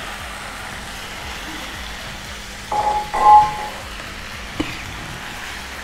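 Thick sambal gravy sizzling steadily in a frying pan as tofu pieces are stirred into it with a wooden spatula. About three seconds in there is a short ringing sound, and a single click comes later.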